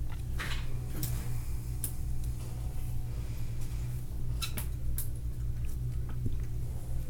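A handful of light, scattered clicks and taps of small hand tools on iPhone 6 parts, over a steady low hum.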